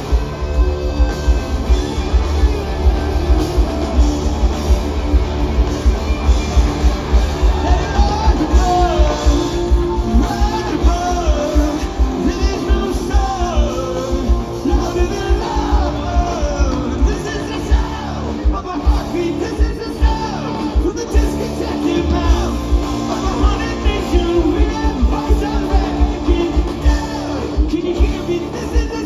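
Live rock band playing, with a steady kick-drum beat and a wavering melody line over it.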